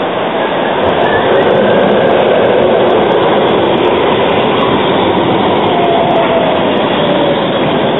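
A modern low-floor street tram passing close by, its wheels rolling on street track with a steady running noise that swells about a second in. A faint falling whine comes near the end.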